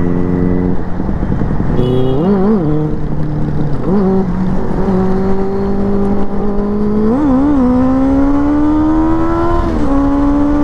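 Benelli TNT 600i inline-four engine accelerating hard through the gears. The pitch climbs in each gear and drops briefly at each shift, about four times, over steady wind rush.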